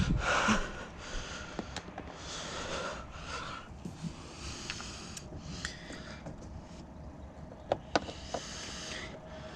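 Hands working on a car's door trim panel: scraping and rustling handling noise, with a couple of sharp plastic clicks near the end as trim rivets are prised out.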